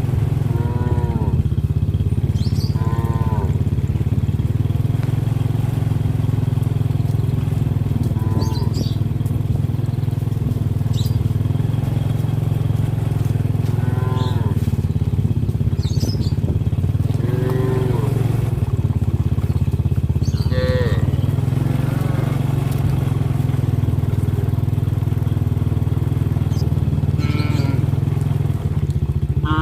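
A small engine running steadily at idle, with short cattle calls breaking in every few seconds.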